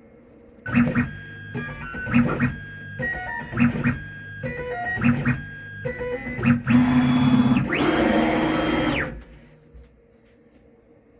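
DIY CNC machine's stepper motors whining through short moves, each a held tone at a different pitch, roughly one move every three-quarters of a second, while a diamond drag tool engraves an aluminum coin. Near the end comes a louder, rougher stretch of about two seconds, then the machine stops.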